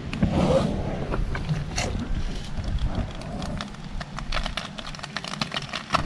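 Small fire crackling under a foil ration tray, with irregular sharp clicks that come thicker in the second half, over a steady low rumble.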